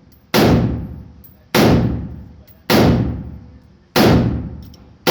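AR-15 pistol firing single shots at a steady pace, about one every 1.2 seconds: four shots, and a fifth right at the end. Each sharp crack dies away in a ringing echo over about a second.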